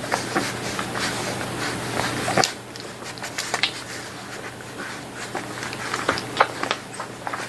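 Newborn puppies suckling from their mother dog: wet smacking and snuffling as they nurse, heard as many quick, irregular clicks.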